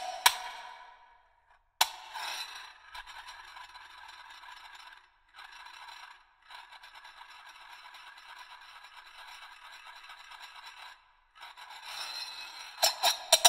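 Two small brass Tibetan singing bowls held in the bare hands and scraped against each other in long grating strokes, broken by short pauses. Sharp metallic clicks sound where the bowls knock together: at the start, just before two seconds in, and several times near the end.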